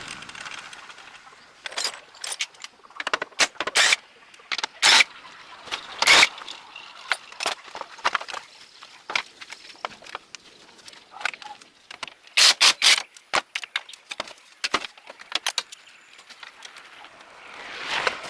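Irregular clinks and knocks of metal tools and parts being handled, some single and some in quick clusters, with a noisy whoosh that swells near the end.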